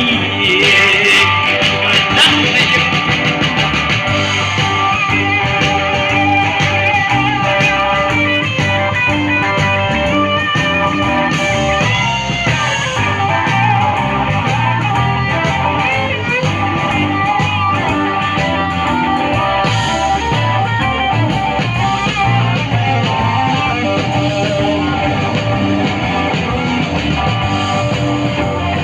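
Live blues-rock band playing an instrumental passage led by guitar, with bass and drums behind it.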